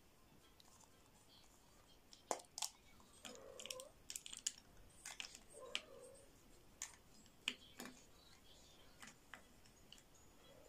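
A hollow chocolate ball being cracked apart by hand and the plastic toy capsule inside it handled: a scatter of small sharp clicks and crackles starting about two seconds in, with a few louder snaps among them.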